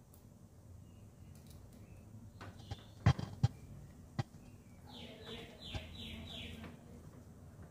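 A few sharp metallic clicks of a Phillips screwdriver tip catching in a screw on the air conditioner's sheet-metal rear panel, about three seconds in, with one more a second later. Then a bird calls in the background, a quick run of five or so repeated notes.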